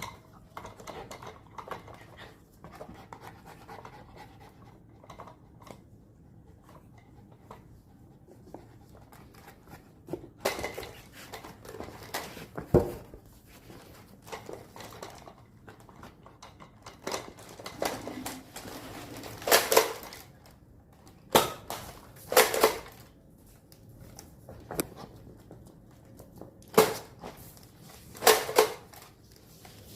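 A dog panting softly, then a series of sharp, irregular clattering knocks, as of dishes and utensils being handled.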